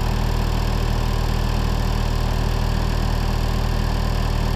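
Diesel engine of a Thermo King SLX300 trailer refrigeration unit running steadily at constant speed.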